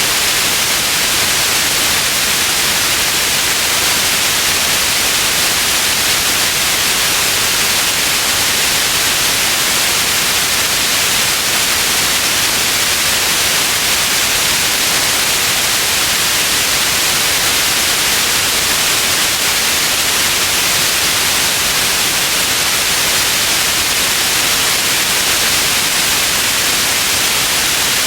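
Steady white noise: an even, unbroken hiss that is strongest in the upper frequencies and does not change.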